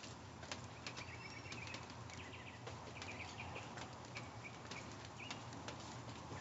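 Steady hiss of light rain with scattered drips and taps, and a bird chirping a run of short high notes in the background.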